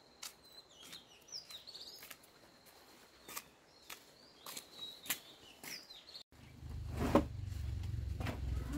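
Small birds chirping, with scattered sharp knocks. About six seconds in the sound cuts to a low steady rumble, with one loud knock shortly after.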